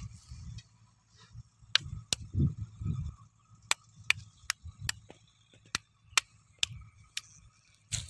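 About a dozen sharp clicks at irregular intervals, with a few dull low thumps in between: hands working a wooden stick and bait, close to the microphone.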